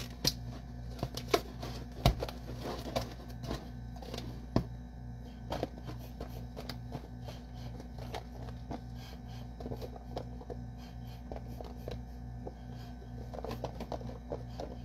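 A plastic food-storage container being handled on a countertop, its snap-on lid pressed shut: a string of irregular clicks, taps and knocks, the sharpest in the first five seconds. A steady low hum runs underneath.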